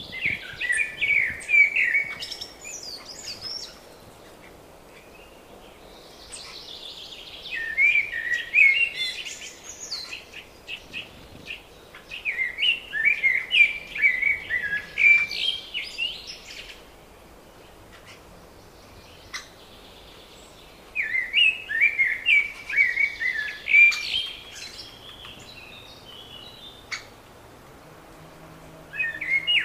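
A songbird singing: four warbling song phrases of a few seconds each, with pauses between them, and the start of a fifth near the end.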